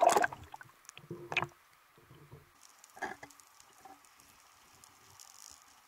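Water sloshing and splashing around a camera at the surface as it goes under, loudest at the start and again about a second in. After that the sound is muffled and underwater, with a few faint knocks.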